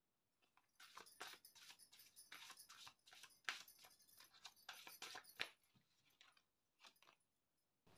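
Faint, scattered soft clicks and slaps of a deck of oracle cards being shuffled by hand, with two slightly sharper clicks in the middle.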